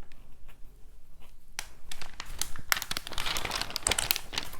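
A paper picture book being handled and its page turned: rustling and crinkling with small sharp crackles. It starts after about a second and a half of quiet and grows busier toward the end.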